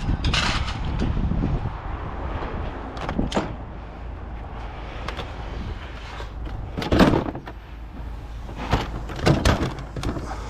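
A run of scattered knocks and clanks, the loudest about seven seconds in and several more near the end, over a steady low rumble, typical of scrap being shifted around a truck.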